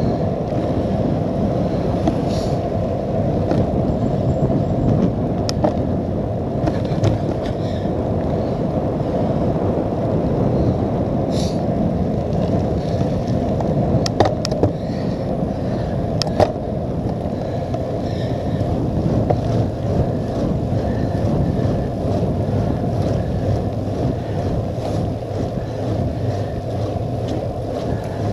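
Steady rush of wind over the microphone of a handlebar-mounted camera on a cyclocross bike ridden at speed, with tyre noise on wet tarmac. A few sharp clicks break through it, several of them around the middle.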